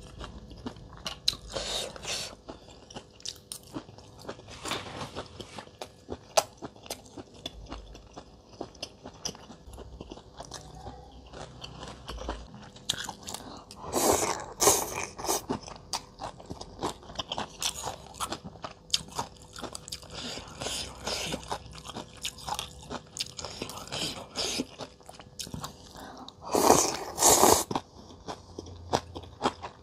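Close-miked eating of rice noodle soup: steady chewing with many small wet mouth clicks, and two loud slurps of rice noodles, about halfway through and near the end.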